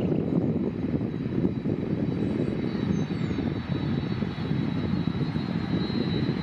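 Amerijet Boeing 767-300F freighter's twin jet engines running at taxi power as it turns on the runway: a steady rumble with a thin high whine over it that grows a little stronger in the second half.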